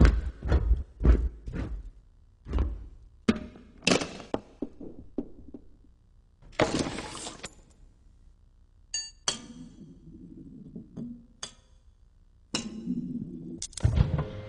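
Car parts in a chain-reaction contraption clinking and knocking against each other: a run of quick taps and knocks, a scraping rush about a second long near the middle, metal pings that ring briefly, and a heavier knock near the end.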